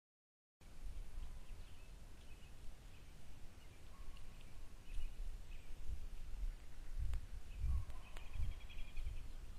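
Low outdoor rumble picked up by a trail camera's microphone, with faint scattered bird chirps and a longer bird call near the end. The sound starts after a half-second gap of silence where two camera clips are joined.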